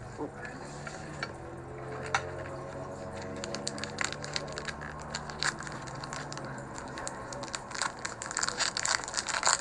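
Crinkling and crackling of a foil booster-pack wrapper being handled and torn open, with sharp crinkles growing denser near the end. A steady low hum sounds underneath until about seven seconds in.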